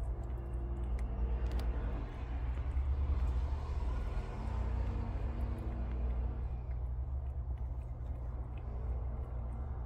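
A steady low rumble, with a broad rushing noise that swells and fades over a few seconds in the middle, likely a passing vehicle. Under it come a few faint clicks of a prairie dog chewing its food.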